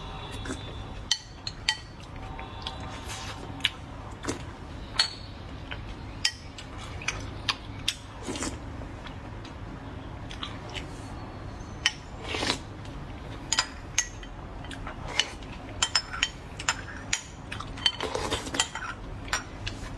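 Spoon and chopsticks clinking against a bowl while someone eats, as scattered sharp clicks at an uneven pace, with a few longer, noisier eating sounds among them.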